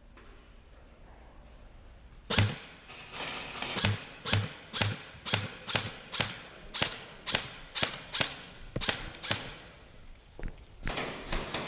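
Footsteps of a person walking at a steady pace, about two steps a second, each a dull thud with a crisp crunch. The steps start a couple of seconds in and crowd closer together near the end.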